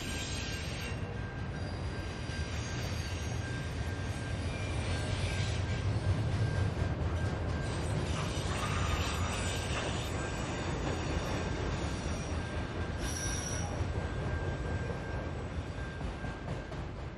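Autorack freight cars rolling past close by: a steady low rumble of wheels on rail, with a thin steady high squeal from the wheels and brief sharper squeals now and then.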